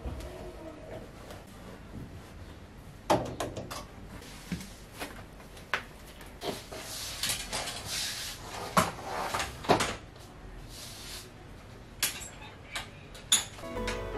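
Fabric rustling as it is pushed into a front-loading washing machine drum, then a series of sharp clacks and clicks as a folding metal clothes drying rack is opened out.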